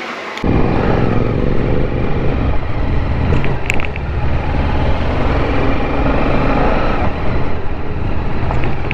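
TVS Apache RR 310 motorcycle running on the road, its engine hum buried under heavy wind noise on the microphone. A short high beep sounds a few seconds in.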